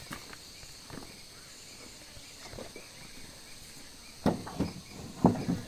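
A steady high insect drone, and about four seconds in a short run of knocks and clatters as wooden planks on a bench are handled.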